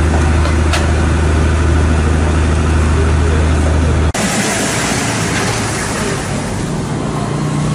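A steady low drone of an idling engine, which cuts off abruptly about four seconds in and gives way to a steady rushing noise.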